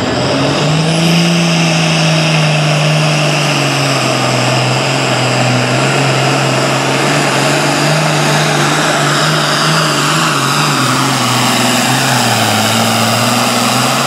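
Turbocharged diesel engine of an International super farm pulling tractor at full throttle, dragging a weight-transfer sled down the track. The engine note climbs as it launches, holds steady under load, then sags slightly near the end as the sled bogs it down. A faint high whine rises as it takes off.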